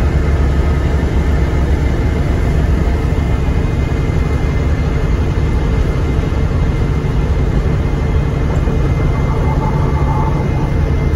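Inside a Volvo B9TL double-decker bus under way: its Euro 3 Volvo D9B six-cylinder diesel engine running with a steady deep drone, mixed with road and body noise.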